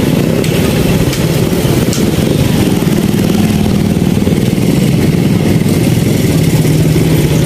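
Small motorcycle engine running steadily at low speed, a constant low hum.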